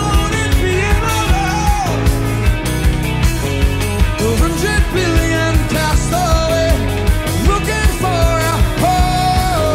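Rock music with a steady drum beat and a singing voice.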